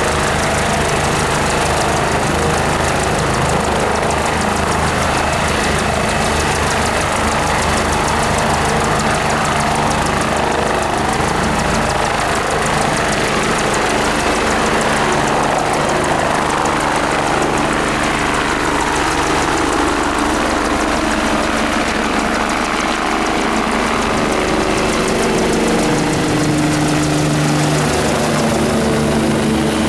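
Medical helicopter's turbine engine and rotor running loud and steady as it lifts off from a field and climbs overhead. The pitch of its tone shifts in the second half as it rises and moves off.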